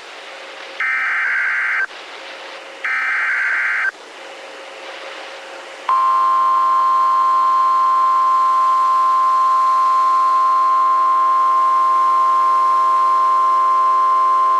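Emergency Alert System broadcast tones: two one-second bursts of SAME digital header data with faint hiss between them, then a long, steady single-pitch attention tone that comes on about six seconds in. Together they announce an NWS severe thunderstorm warning.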